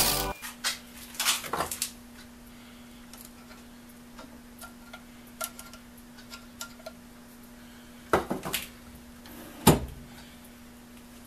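Light metallic clinks and knocks of tools and parts being handled on a metal lathe, a few at a time, with a louder cluster of knocks late on, over a faint steady hum.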